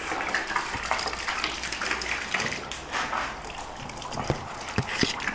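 Water running, with a few light knocks in the last second or so.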